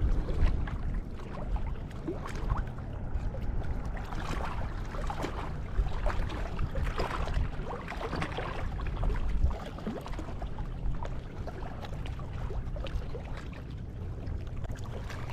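Wind buffeting the microphone with a steady low rumble, and small splashes and lapping of water.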